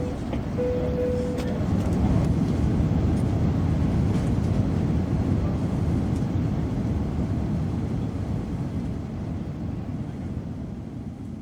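Boeing 747 jet engines giving a deep rumble that swells over the first few seconds and then slowly fades away. A steady tone stops about a second and a half in.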